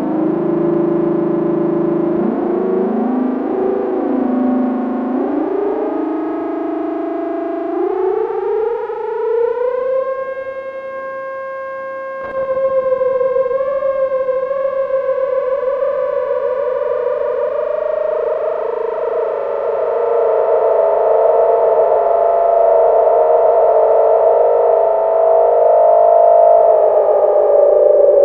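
Technics SY-1010 analog monophonic synthesizer holding one continuous note through a Korg SD-400 analog delay while its knobs are turned. The pitch wobbles, then glides up over a few seconds and holds while the tone brightens and darkens. It jumps louder about twelve seconds in and sinks slightly in pitch near the end.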